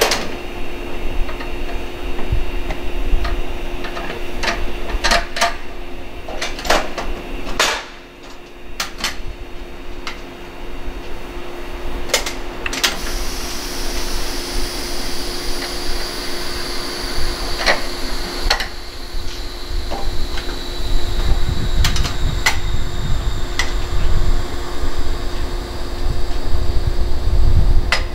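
Sharp metallic clanks and clicks from hand work at the coupling between two 115 series electric train cars, as the cars are joined, over a steady hum. From about halfway a faint high whine slowly falls in pitch, and a low rumble rises near the end.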